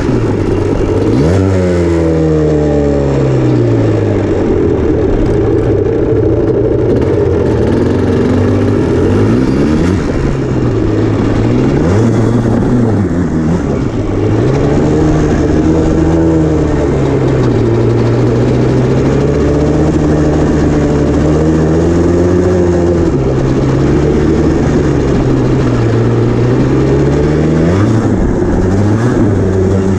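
Yamaha Blaster ATV's two-stroke single-cylinder engine under way, its pitch rising and falling again and again with the throttle, with a longer steadier stretch in the middle.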